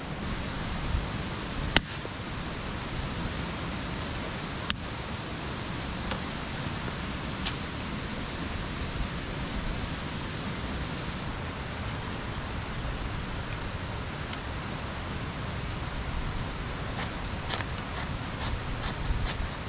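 Dry sticks snapping now and then as firewood is broken by hand, over a steady rushing background noise. Near the end come quick repeated scrapes of a ferro rod striker throwing sparks onto tinder.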